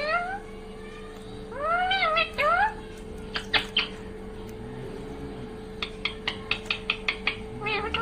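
Rose-ringed parakeet calling: short meow-like calls that rise and fall in pitch, near the start and again about two seconds in, then sharp clicks, with a quick run of about nine clicks from about six seconds in. A steady hum runs underneath.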